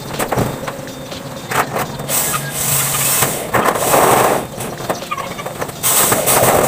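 Cordless drill driving screws into corrugated metal roofing in short bursts, a few seconds apart.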